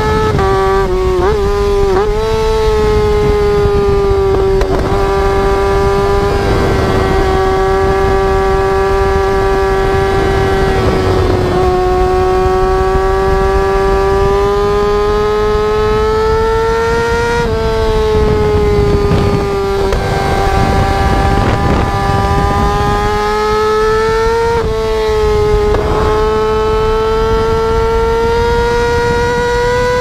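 Yamaha YZF-R6's inline-four engine running at high revs while the bike is ridden hard, a loud, high steady whine. Its pitch creeps slowly upward and dips briefly a few times, with quick up-and-down wobbles about a second in.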